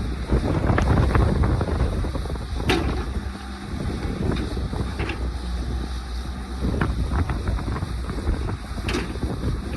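Caterpillar excavator's diesel engine running steadily, with a couple of sharp knocks from the machine and wind on the microphone.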